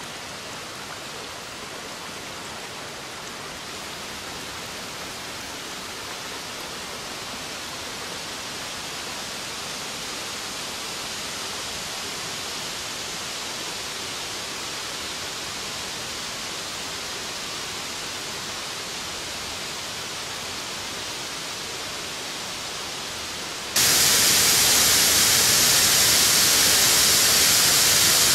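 Rushing water of a torrent: a steady rush of noise that suddenly becomes much louder and brighter near the end.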